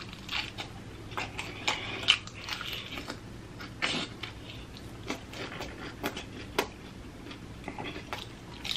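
Biting and chewing of sauce-coated fried chicken wings, with meat pulled off the bone: irregular wet clicks and mouth smacks.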